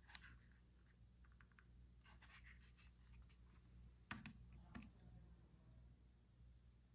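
Near silence: faint scratching and small clicks of a diamond tester's probe tip being moved over a quartz rock, with two light knocks about four seconds in, over a low steady hum.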